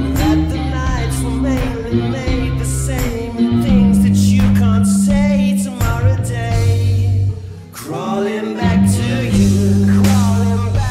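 Rock music: a Stratocaster-style electric guitar playing along over a backing track with a heavy, sustained low riff and a voice in the mix. The level dips briefly a little past the middle, then the band comes back in.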